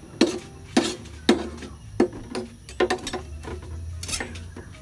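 A metal spatula knocking and scraping against a frying pan and a motorcycle cylinder block and piston sitting in oil, giving a run of about ten sharp, irregular metallic knocks. A low steady hum runs underneath.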